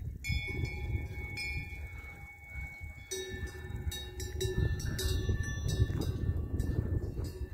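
Cowbells clanking irregularly, each clank leaving several ringing tones that hang on, with a steady low rumble underneath.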